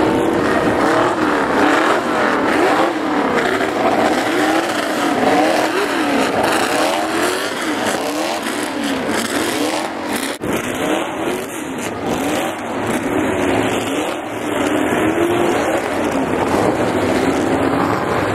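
Several historic open-wheel single-seater racing cars passing one after another, their engines revving with many overlapping pitch sweeps climbing and dropping as they accelerate by. The sound breaks briefly about ten seconds in.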